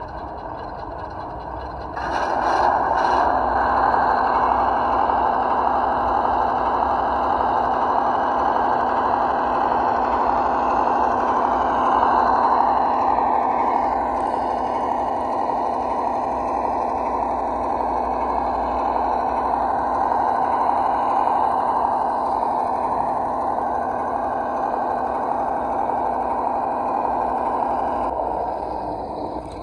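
Cross RC 1:12-scale ZIL-131 model truck running, its onboard sound module playing a V8 engine sound. The sound starts suddenly about two seconds in, holds steady, and cuts out near the end.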